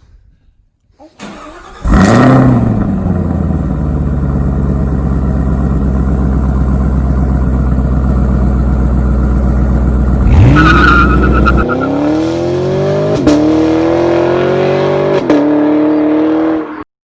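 Car engine sound effect. The engine starts about two seconds in and idles steadily, then revs and accelerates through three rising gear changes before cutting off suddenly near the end.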